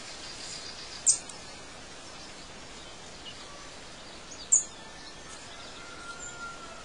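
Birds chirping over a steady background hiss: two short, loud, high chirps, one about a second in and one near the middle, with fainter bird calls between.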